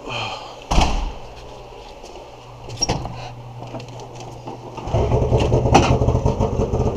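A door bangs about a second in, then about five seconds in an Arctic Cat snowmobile's engine starts and runs steadily.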